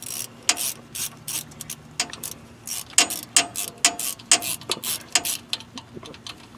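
Quarter-inch ratchet clicking in short irregular runs as it backs out the small lock bolt that holds the differential's cross pin; the bolt is unthreading freely rather than breaking.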